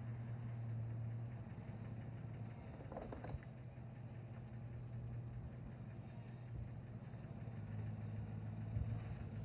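Engine running steadily with a low, even hum, and a short rattle about three seconds in.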